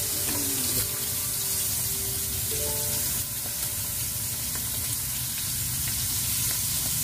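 Batter-coated frogs deep-frying in hot oil in a pan, a steady sizzle.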